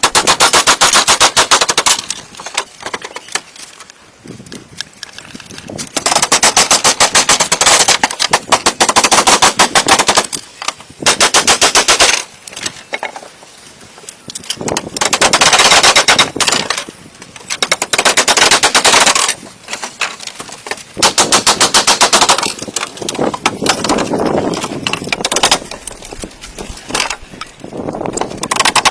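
A power tool working wood, giving loud bursts of rapid, repeated sharp knocks, each burst lasting a few seconds with short pauses between.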